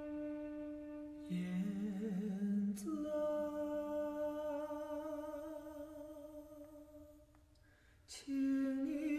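Wordless humming or sung drone: long held notes. A lower, wavering voice joins briefly about a second in. A new held note begins about three seconds in and fades away, and another note starts near the end.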